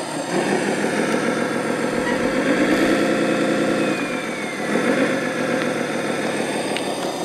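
Radio-controlled model Komatsu WA600-6 wheel loader running with a boulder in its forks, its engine sound chugging steadily. Between about two and four seconds in, the engine note goes louder and steadier.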